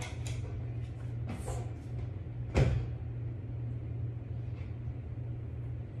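A cupboard or door closing off in another room: a few light knocks, then one sharp bang with a short ring about two and a half seconds in, over a steady low hum.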